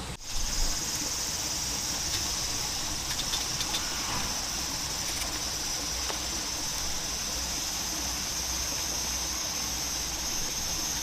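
Insects chirring steadily in a high, unbroken band, over a soft background hiss.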